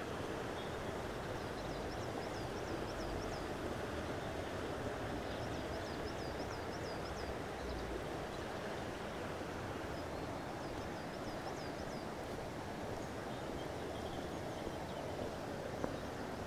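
Steady rush of flowing stream water. A small songbird sings a quick run of high repeated notes over it four times, about every four seconds.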